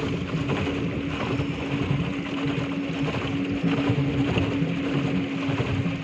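Pedal boat underway on a lake: a steady low hum over a rough, uneven wash of noise.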